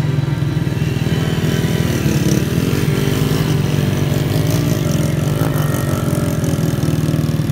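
Small motorcycle engines running steadily with a fast, even putter as the bikes ride through shallow river water.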